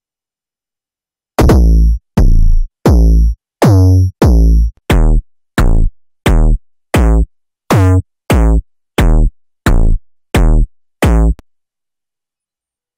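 KickOne kick synthesizer playing distorted EDM and hardstyle kick drum presets: about fifteen loud, evenly spaced kicks, each a sharp punch with a pitch that drops fast. They start about a second and a half in and stop about two seconds before the end.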